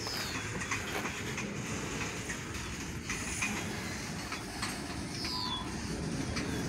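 Freight train of tank cars rolling slowly over the rails just after starting off again from a stop: a steady rumble with faint, irregular wheel clicks.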